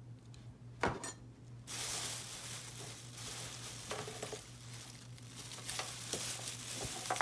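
A light knock about a second in, then a steady crinkling rustle as items are handled, with a few small knocks.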